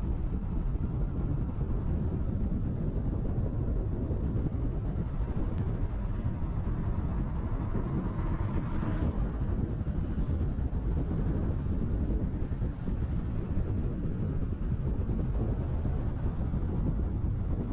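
Steady low rumble of road and wind noise picked up by a camera on the roof of a moving car. About nine seconds in, an oncoming vehicle swells up and passes.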